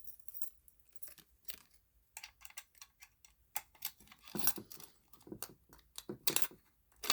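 Scattered clicks and knocks of a Simplex fire alarm pull station being handled and opened, with a few louder clacks past the middle.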